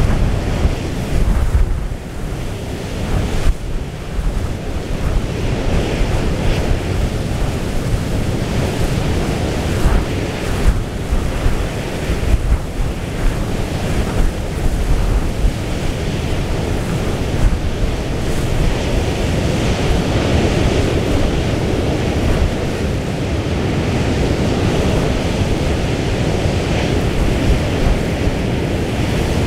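Storm wind buffeting the microphone in gusts over the rush of a rough, breaking sea.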